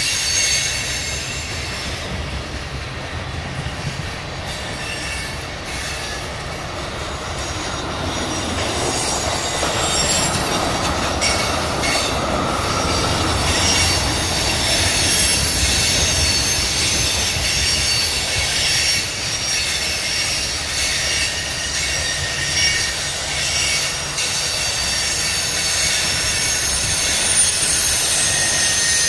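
Freight train of tank cars rolling past at close range: a steady rumble of steel wheels on the rails with high-pitched squealing from the wheels throughout.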